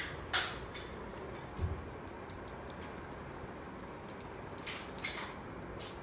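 Scattered sharp clicks and a dull tap of a parakeet's claws and beak on a plastic hanging basket as it climbs, over a steady hiss.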